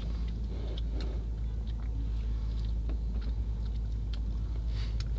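Ice cream being licked and eaten close to the microphone: small wet licks and lip smacks over the steady low hum of a car's engine heard inside the cabin.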